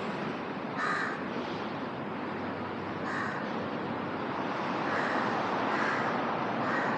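A crow cawing about five times, short harsh calls spaced a second or two apart, over a steady background of city noise.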